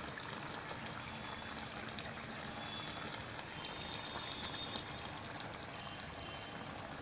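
Chicken gravy bubbling steadily in a kadhai while a thick seed paste is poured into it from a mixer jar.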